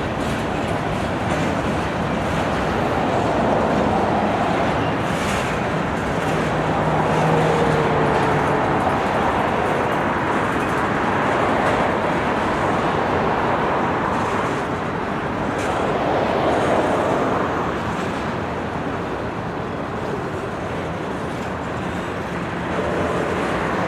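Empty grain freight train rolling past: a steady rumble and rattle of steel wheels on the rails, swelling and easing a little, with a few faint held squeals.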